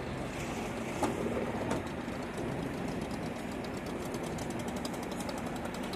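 Boat engine running steadily, with a rapid, even ticking over a low rumble.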